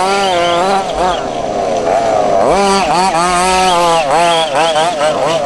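Several 1:5 scale off-road buggies' small two-stroke petrol engines racing together, their pitch rising and falling over and over as they rev up along the straights and drop back into the corners.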